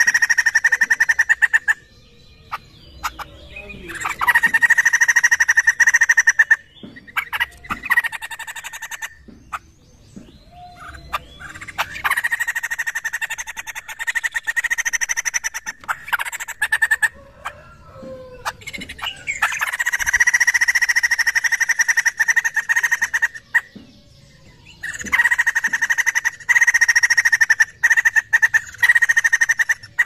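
White-crested laughingthrush calling in bursts of rapid, harsh chattering a few seconds long, with short pauses between them.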